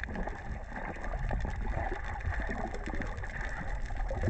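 Water noise: a steady low rumble with gurgling and faint scattered clicks.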